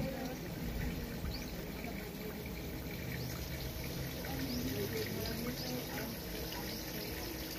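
Light rain falling on a pond, with small drops plinking on the water surface in a steady patter.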